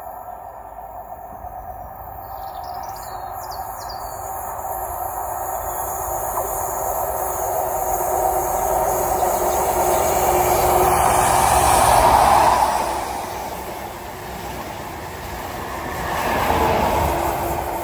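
A Great Western HST, Class 43 diesel power cars hauling Mark 3 coaches, approaching and running past along the station platform. The engine hum and wheel rumble grow louder to a peak about twelve seconds in, ease off, then swell again near the end as the train passes.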